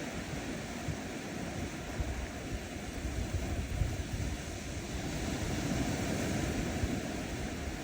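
Ocean waves washing onto a sandy shore, a steady surf that swells a little past the middle.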